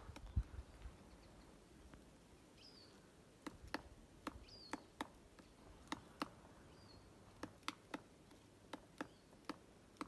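Magellanic woodpecker knocking on wood: faint, sharp, irregular knocks, often two in quick succession. A few faint high bird notes sound between them.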